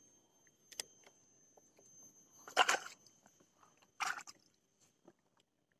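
Handling noise from clothing rubbing against the camera's microphone: a click a little under a second in, then two short rustles, the loudest about two and a half seconds in and another at about four seconds.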